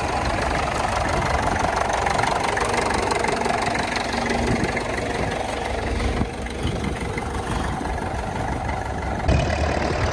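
Tractor engine running steadily, with an abrupt change in the sound near the end.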